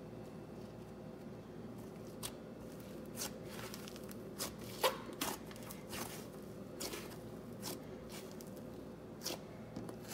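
Icee cream texture slime being kneaded and pressed by hand, giving a scattering of small crackling pops and squishes, the loudest about halfway through, over a faint steady hum.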